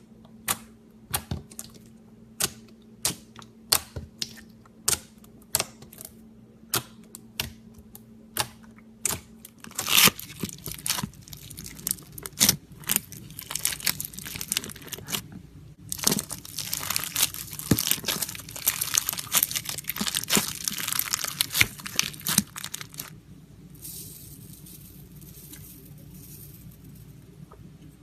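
Slime being played with by hand: sharp sticky pops about twice a second for the first ten seconds, then a long stretch of dense crackling, crinkly squelching as it is stretched and squeezed, fading to a softer hiss for the last few seconds.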